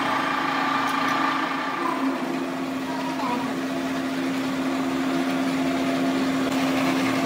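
Factory machinery running with a steady hum, a constant low tone held throughout.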